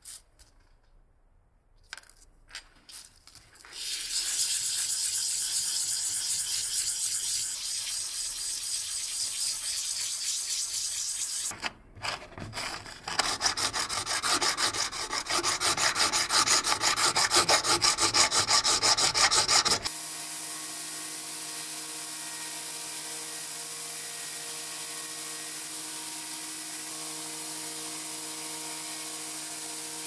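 Abrasive work on a small brass tube. First a steady rubbing hiss of sanding on abrasive paper. Then, from about twelve seconds in, a louder rasp of quick hand-file strokes on the brass. From about twenty seconds in, an electric belt sander runs with a steady hum and hiss.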